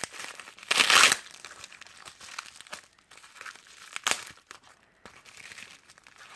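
Packaging being torn open and crinkled by hand. A loud ripping rustle comes about a second in, then scattered softer crinkles and a sharp click about four seconds in.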